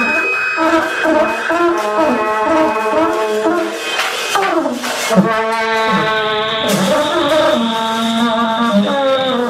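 Experimental noise music played live: layered pitched tones with strong overtones that step and slide in pitch, with a falling glide about halfway through and a steady high tone added in the second half.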